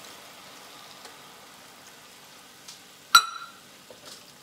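Mushrooms, garlic and Marsala wine sizzling faintly in a cast-iron skillet. About three seconds in, a single sharp metallic clink with a brief ring.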